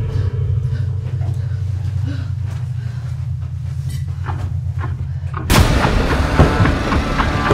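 Horror film score: a low sustained bass drone with faint scattered ticks, then about five and a half seconds in a sudden loud crash that breaks into loud, dense music.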